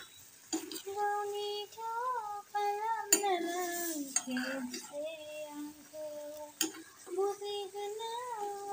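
A high voice singing a tune over the stirring of chicken curry in a wok, with the metal spatula scraping and knocking against the pan twice.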